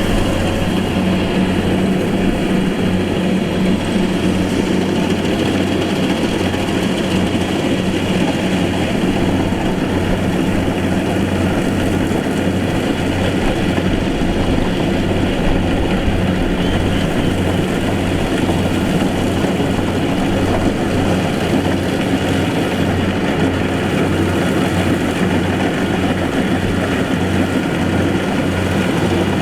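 Engine of a rice-harvesting farm machine running steadily, a constant low drone with no change in speed.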